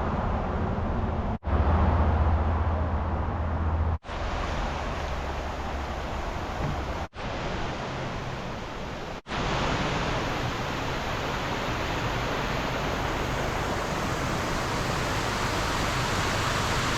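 Steady rush of a waterfall, heard in several short cuts, with a low rumble in the first few seconds; the rush grows fuller and brighter from about nine seconds in.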